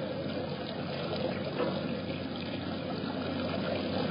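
Small artificial rock waterfall splashing and trickling steadily into a pond.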